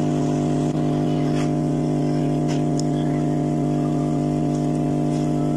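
Hot air rework gun running with a steady, even hum, heating a TV logic board to desolder and cut off the LCD panel's power supply.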